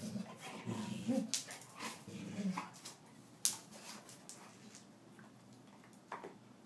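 A dog making short, low whimpering vocal sounds during play in the first couple of seconds, followed by scattered sharp clicks and knocks. The loudest knock comes about three and a half seconds in.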